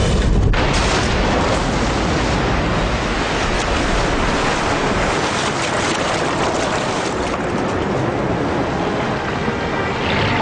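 A twin-engine plane ditching into the sea: a continuous heavy rush of churning, bubbling water that sets in about half a second in and carries on as the plane goes under.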